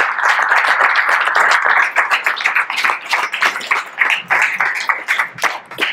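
Audience applauding, dense at first, then thinning into scattered separate claps toward the end.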